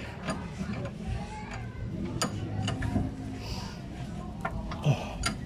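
Irregular sharp metallic clicks and ticks of a socket wrench and a loosened suspension bolt being worked by hand at a car's rear strut.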